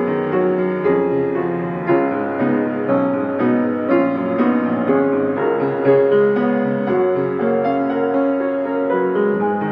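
Piano music: chords and melody notes played at an even, unhurried pace.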